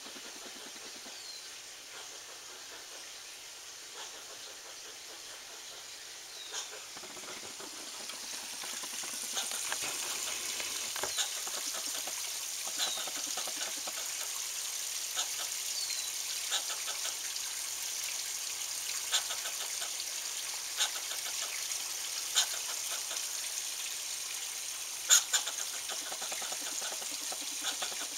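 Agitated squirrel's alarm calls: short, sharp barks and chirps repeated every second or two. They sit over a steady hiss that grows louder about a third of the way in.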